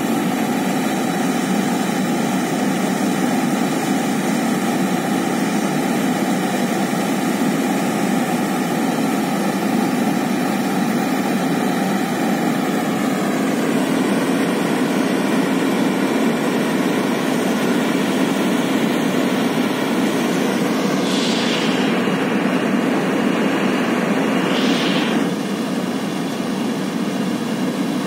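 Steady loud jet aircraft engine noise on an airport apron: an even hum with a whine above it. About three-quarters of the way through a higher whistle slides down in, holds, then stops about four seconds later.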